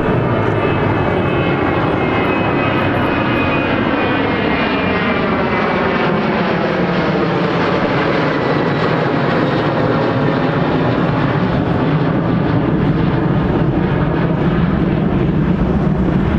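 Boeing 737-700's CFM56-7B jet engines running loud and steady as the airliner passes close by, with a slowly sweeping, phasing whoosh in the roar.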